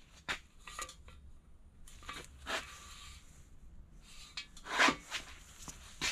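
Small handling sounds of a digital caliper and piston ring being worked in an engine block's cylinder bores: a few light clicks and scrapes, with two short louder rustles about two and a half and nearly five seconds in.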